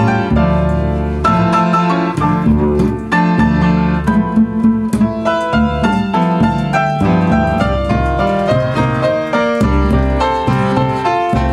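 Upright piano and plucked double bass playing an instrumental piece together: a run of piano notes over a walking bass line.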